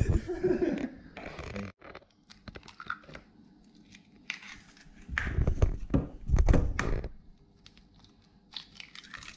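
Potato chips being crushed into a crumb: irregular crunching and crinkling, with two louder heavier crunches about five and six and a half seconds in.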